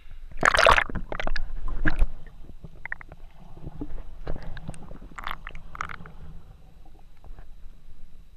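Water splashing over the camera as it plunges below the surface, then muffled underwater sound with scattered clicks, knocks and gurgles.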